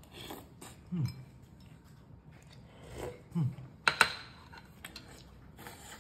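Close-up chewing and mouth clicks from a person eating pempek, with two short falling hums of the voice, one about a second in and one past the middle. The loudest sound is a sharp double clink of a metal spoon against a ceramic plate about four seconds in.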